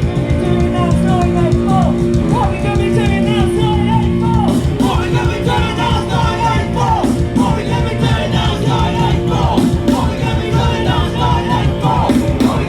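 A punk rock band playing loud and live, with guitar, bass and drums and shouted vocals. Held guitar chords give way about four and a half seconds in to a busier passage with the shouting more to the fore.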